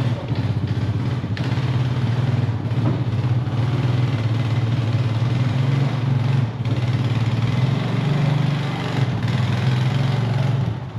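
A vehicle engine running steadily at a low, even pitch, with small rises and falls in level.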